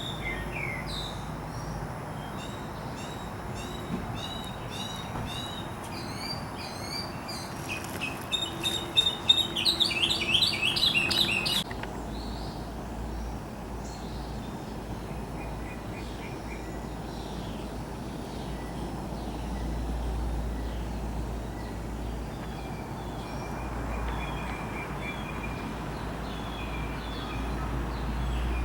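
Wild songbirds chirping and singing, with a loud burst of rapid repeated chirps that stops suddenly about twelve seconds in. After that, fainter scattered calls continue over a low steady rumble.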